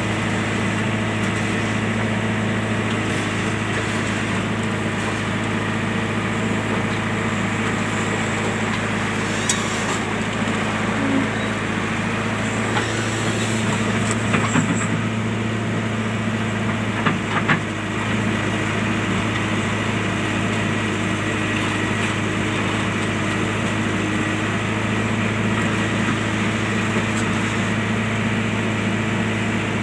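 A JCB machine's diesel engine running steadily at an even speed, with a few short knocks about halfway through.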